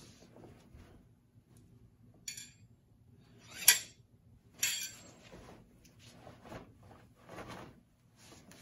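A pair of metal sai clinking together: three sharp, ringing clinks about two, three and a half and four and a half seconds in, the middle one much the loudest, as the sai meet crossed overhead. Fainter irregular brushing sounds follow.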